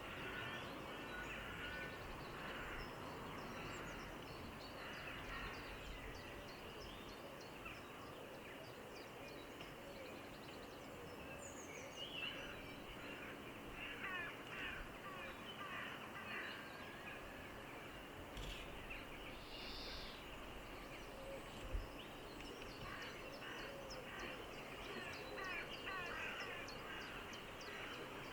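Mallards (adult females, juveniles and ducklings) dabbling in shallow water among long grass: repeated clusters of quick bill clicks and soft calls over a steady background hiss, with one sharp tap a little past the middle.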